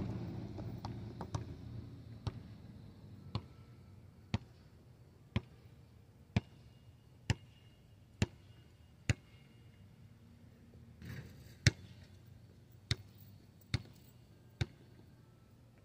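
A basketball dribbled on an asphalt court: faint, sharp bounces about once a second, with a short break about two-thirds of the way through before the bouncing resumes.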